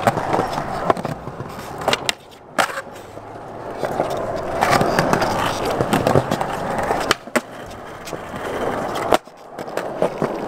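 Skateboard wheels rolling over concrete, broken by several sharp clacks of the board hitting the ground. The rolling grows louder about halfway through.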